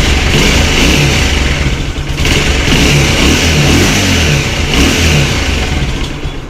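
Bajaj Pulsar 180's single-cylinder engine running just after its first start following a rebore and new piston, the revs shifting a little as it runs; the sound falls away near the end.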